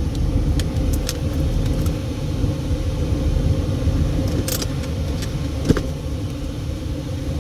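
Steady in-car noise of the engine running and the air conditioning blowing, a low rumble with a steady hum. A few light clicks and rattles come through, one near the start and a couple more about four and six seconds in.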